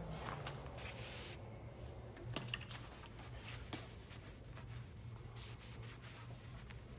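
Faint rubbing and a few light ticks from handling the work, over a steady low hum.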